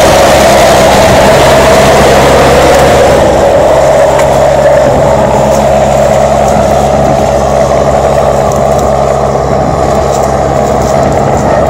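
John Deere 6420's four-cylinder diesel engine running steadily under load, pulling a mounted plough through the soil. The sound turns duller about three seconds in.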